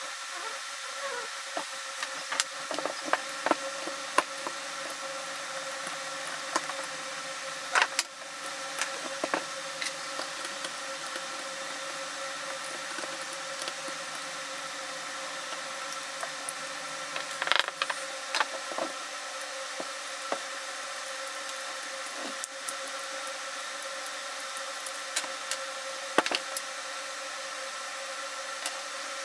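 Scattered clicks, taps and knocks of tools and metal and plastic parts being handled while an airsoft rifle's lower receiver is taken apart. The sharpest knocks come about eight seconds in, around seventeen seconds and near twenty-six seconds, over a steady background hum.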